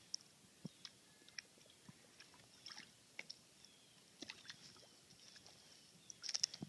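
Faint small splashes and drips of water as a dog moves about in shallow water, with a brief louder flurry of splashing near the end.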